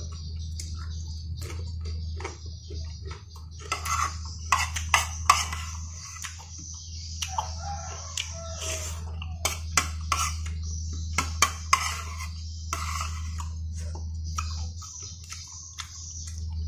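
Close-up eating sounds: a metal spoon clinks and scrapes on a plate, with chewing and slurping of vegetable rice porridge. A steady low hum runs underneath.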